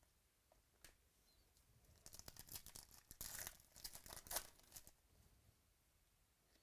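Crisp plastic crinkling and tearing as trading-card packaging and sleeves are handled, a rustling, crackling cluster lasting about three seconds in the middle.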